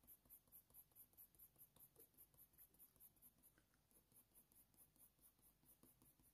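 Faint scratching of a Faber-Castell Polychromos colour pencil on hot-press watercolour paper: quick short strokes, about four or five a second, laying down fur texture. The strokes grow fainter and sparser after about three and a half seconds.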